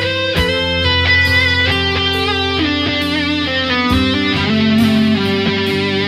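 Background music led by guitar, a melody of plucked notes over sustained lower tones.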